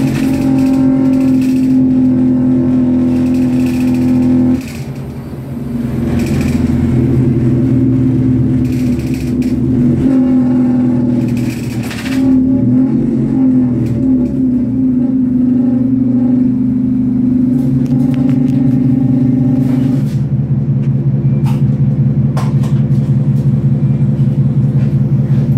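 Scania OmniCity bus's diesel engine and drivetrain heard from inside the passenger saloon while the bus drives, its note changing pitch a few times as it goes through the gears, with a brief drop in loudness about four and a half seconds in. About twenty seconds in it settles to a lower, steady, evenly pulsing note, with light rattles from the bus interior.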